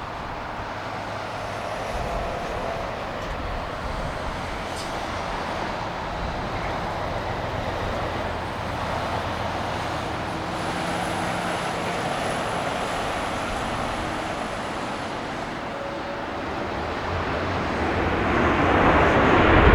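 Airbus A330-200 jet airliner on approach, its engine noise a steady distant rush that grows louder over the last few seconds as it nears.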